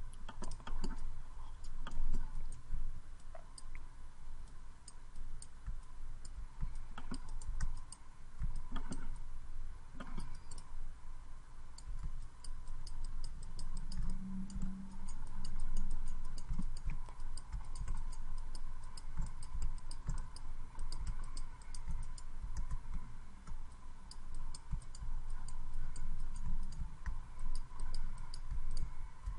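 Scattered clicks and soft knocks of a computer mouse and keyboard as sculpt-brush strokes are painted and the Shift and Ctrl keys are pressed, over a faint steady hum.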